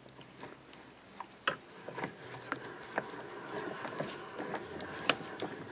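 Hand-cranked chainsaw-chain rivet spinner working a connector-link rivet, its wheel pressing and spinning the rivet head flat. It gives a quiet metallic rubbing and grinding with sharp clicks about twice a second, and the grinding grows from about a second and a half in.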